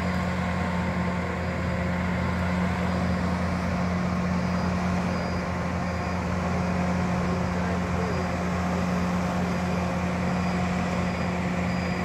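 Large lifting crane's diesel engine running at a steady pitch while hoisting a steel bridge girder, a low, even hum.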